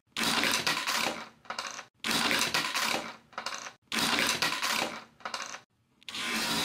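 Hard plastic Sonic ball launched along a LEGO brick track, rolling and clattering through the loop. The clatter comes in three stretches of about two seconds, each starting abruptly and trailing off into scattered clacks, with a fourth beginning near the end.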